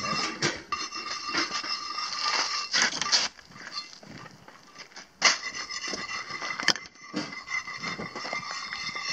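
A steady, high, machine-like whine of several held tones, fading out for about two seconds midway and then resuming, with sharp knocks at the moment it resumes and again about a second and a half later.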